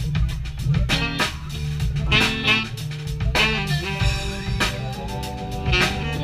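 A jazz-funk band playing live: drum kit, upright bass, electric guitar and keyboard in a steady funk groove.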